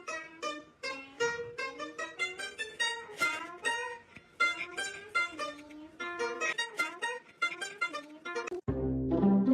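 Background music with a plucked string instrument playing quick, bouncy notes. It cuts near the end to a louder passage with a deep low part.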